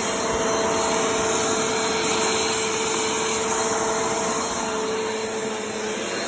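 Vacuum cleaner running steadily: a rushing of air with a steady motor whine, which fades out near the end.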